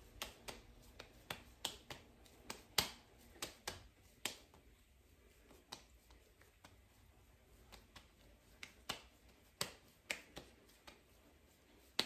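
Hands patting a ball of arepa dough between the palms to flatten it: a run of sharp, light slaps, about three a second, growing sparser for a few seconds in the middle before picking up again.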